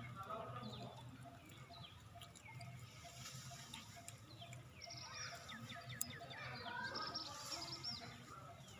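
Faint, rapid high chirping calls: many short falling squeaks, thickest from about five seconds in to past seven seconds.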